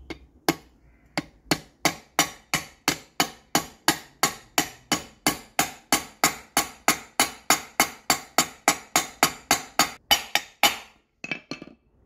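Hammer tapping a new ball bearing into its seat in a washing machine's aluminium bearing housing, a long, even run of sharp metallic blows at about three a second. The blows stop about eleven seconds in, followed by a couple of lighter taps.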